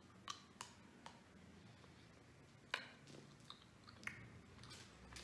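A person chewing a piece of chocolate close to the microphone: faint, soft wet mouth sounds with scattered small clicks and smacks, the loudest a little under three seconds in.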